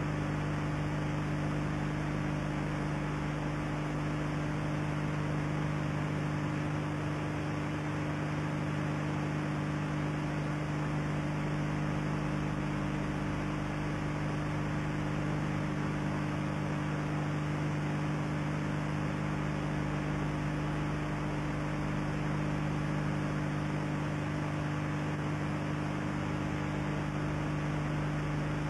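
Steady electrical mains hum with a constant hiss: the noise floor of an old analogue videotape recording. It does not change.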